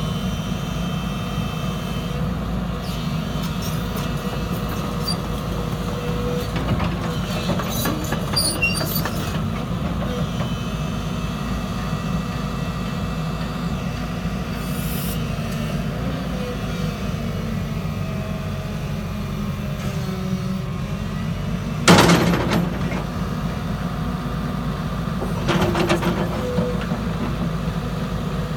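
JCB 220LC Xtra tracked excavator's diesel engine running steadily with a low rumble. It has scattered brief clatter, and one sudden loud sharp noise about three-quarters of the way through.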